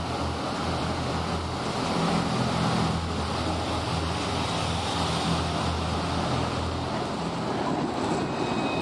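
Irish Rail diesel multiple unit moving slowly past the platform, its underfloor diesel engines giving a steady low hum with a wash of rumble. Near the end the sound changes to a city street with a tram.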